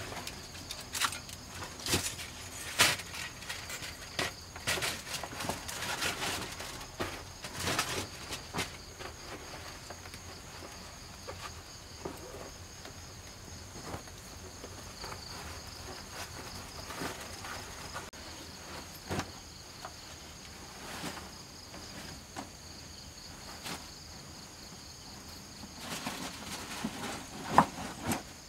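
Crickets chirping steadily in a high, continuous drone, with intermittent rustles and knocks from a cloth backpack and its straps being handled. The rustles are thickest in the first several seconds, and a sharp knock near the end is the loudest sound.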